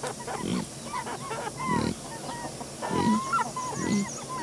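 Animal calls: many short whistled chirps mixed with low grunts about once a second, and a fast high trill near the end.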